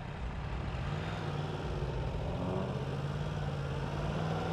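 A 2015 Yamaha R1 sport bike's inline-four engine running at low revs as it rolls slowly through stop-and-go traffic. A steady low engine hum with road noise, and other vehicles' engines around it.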